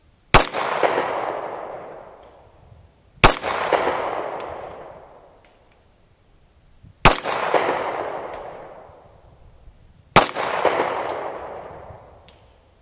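Four slow, single handgun shots from a Springfield Armory XD-S .45 ACP pistol, spaced about three to four seconds apart. Each sharp crack is followed by a long echo that dies away over about two seconds.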